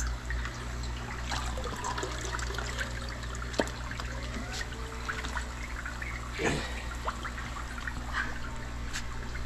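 Water trickling and splashing as a fish tank is drained, with scattered small splashes and one louder splash a few seconds from the end, over a steady low hum.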